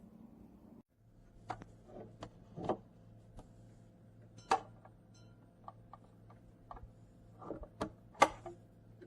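Irregular light clicks and knocks, a dozen or so at uneven intervals, over a faint steady hum; the loudest knocks come about halfway through and near the end.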